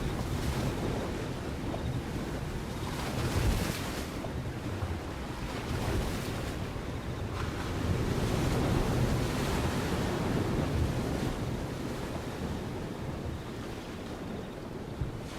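Steady rushing noise, heaviest in the low end, swelling and easing every few seconds, with no distinct calls or knocks.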